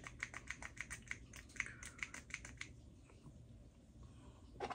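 A quick run of faint, light clicks or taps, about five or six a second, for the first two and a half seconds, then one more click near the end.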